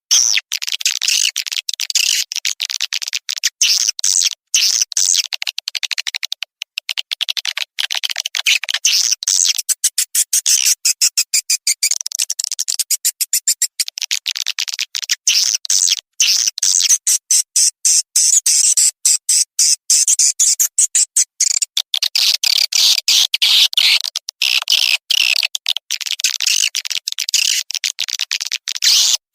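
Swiftlet lure call played for a swiftlet house: rapid, high-pitched twittering and clicking chatter of swiftlets, continuous with brief gaps.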